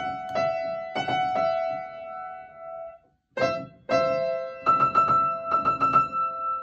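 Upright piano played: chords struck repeatedly and left to ring out, a brief pause a little after three seconds in, then new chords with quick repeated high notes over them, part of a piano rendition of a train's on-board melody.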